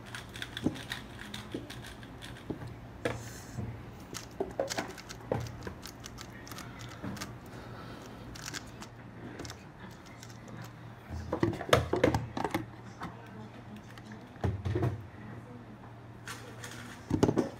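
Scattered plastic clicks and clatter of 3x3 speedcubes being turned and handled, with a few louder bursts of knocks about two-thirds of the way through and again near the end. A faint steady low hum runs underneath.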